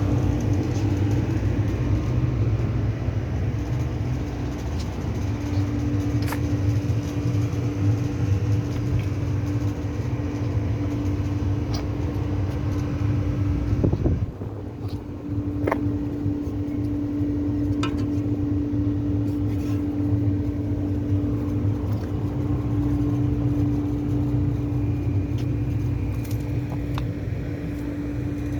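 Machinery running steadily with a low rumble and a constant hum, dipping briefly about halfway through, with a few faint clicks.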